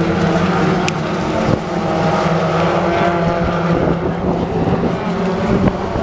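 BTCC touring cars' turbocharged four-cylinder racing engines running hard around the circuit: several engine notes overlapping in a steady drone, with a brief sharp tick about a second in.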